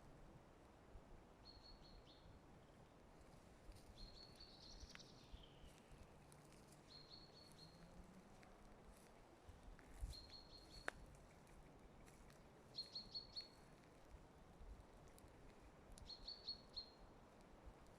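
A small bird singing faintly: short, high phrases of three or four quick notes, repeated every two to three seconds, over a soft steady hiss of background noise.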